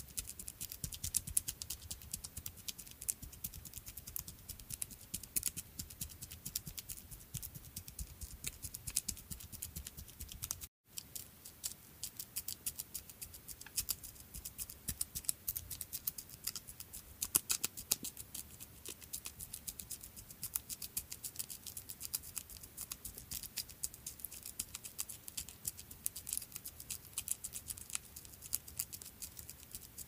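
Small creature footsteps sound effect: rapid, light ticking and pattering steps, many per second, with a brief break about eleven seconds in.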